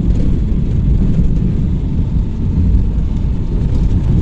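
Steady low rumble of a moving vehicle, heard from on board.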